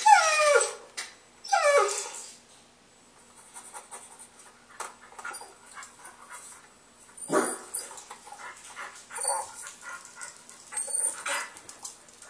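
Dog whining and yelping: two loud whines falling steeply in pitch at the start, then quieter scattered yips and a lower falling call about seven seconds in, with more short cries near the end.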